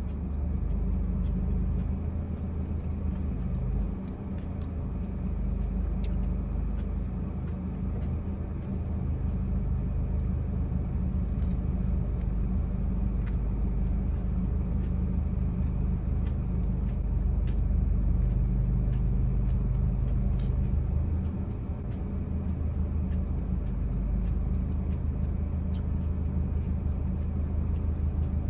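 Steady low rumble of a car on the road heard from inside the cabin, swelling and easing slightly as the speed changes.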